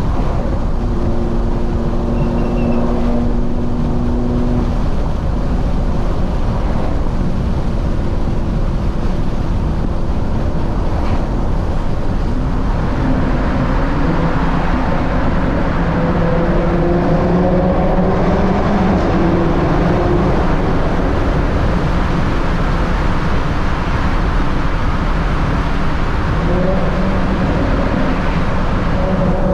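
Audi TT RS's turbocharged five-cylinder engine heard from inside the cabin at expressway cruise, over steady tyre and road noise. About twelve seconds in the car enters a tunnel and the road noise grows fuller; after that the engine note rises gently a few times as the car picks up speed.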